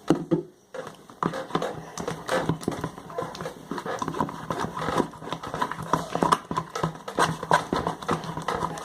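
Green glue slime being mixed as activator is added: rapid, irregular wet clicks and squelches as the mixture thickens.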